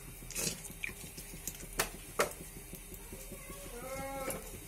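Cooking oil poured into a hot kadhai, with a few sharp crackles and pops over a steady low background hum. About four seconds in, a short pitched voice-like sound rises and then falls.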